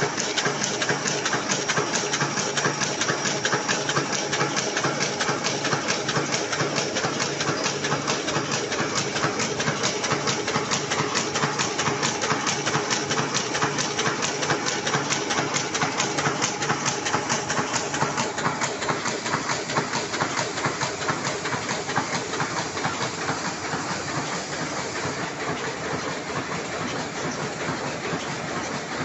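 Heidelberg Speedmaster offset printing press running: a fast, even mechanical clatter over a steady airy hiss. It softens slightly about three-quarters of the way through.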